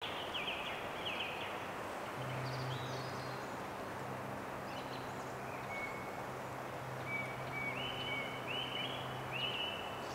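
Outdoor ambience of a steady hiss with short, high bird calls, a few early on and a quick run of them near the end, over a faint low hum that comes and goes.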